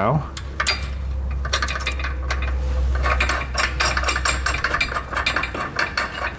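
Light metallic clicks and clinks of a flat washer, lock washer and nut being threaded loosely by hand onto a long steel bolt. A low hum in the background stops about two-thirds of the way through.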